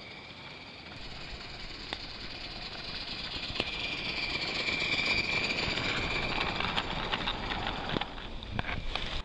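Modified Accucraft Ruby live-steam garden-railway locomotive running past with its train of log cars: the sound grows as it comes close, peaking about four to six seconds in, then eases as it moves away. Scattered sharp clicks run through it.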